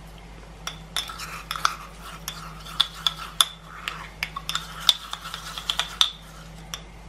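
A metal spoon scraping and clinking inside a glass jar of chili crunch as chili oil is scooped out: a run of quick taps and scrapes that stops about six seconds in.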